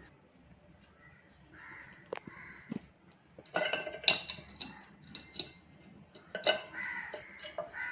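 Silicone spatula stirring thick halwa batter in a metal pan, knocking and scraping against the pan, with the loudest cluster of knocks about halfway through. Crows caw in the background.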